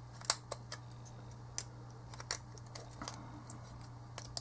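Scattered small clicks and taps of pliers working on a car-stereo display circuit board and its metal display frame as they are pried apart, over a low steady hum.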